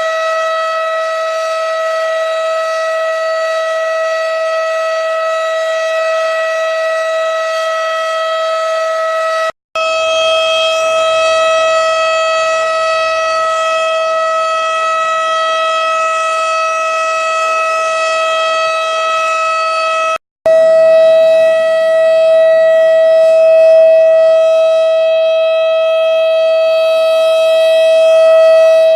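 Synthesized single-tone 12-port civil defense siren sound held at one steady high pitch, with no wind-up or wind-down. It plays as three separate takes at the same pitch of about ten seconds each, broken by brief gaps about ten and twenty seconds in; the third take is louder.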